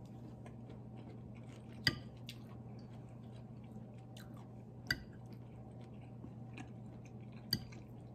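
A person chewing a mouthful of stir-fried beef and broccoli, with a fork clinking sharply against the plate three times, about two and a half to three seconds apart, over a low steady hum.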